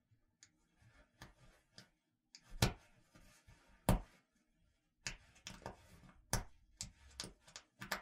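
Jacket buttons clicking, with fabric rustling between. There are a few light clicks, then two sharp clicks about a second apart, then a quicker run of about seven clicks near the end.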